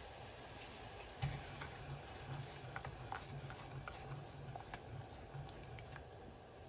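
Butter melting in simmering hot sauce in a metal saucepan, giving small scattered pops and crackles. A knock about a second in, then a silicone spatula stirring the sauce with a soft rhythmic swish against the pot.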